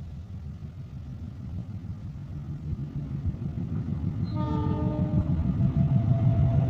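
KAI CC206 diesel locomotive and its train rumbling steadily louder as it approaches. About four seconds in it sounds a horn blast lasting about a second, followed by a steady high tone near the end.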